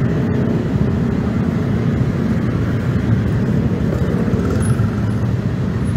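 Steady road traffic, with motorcycle and car engines running close by.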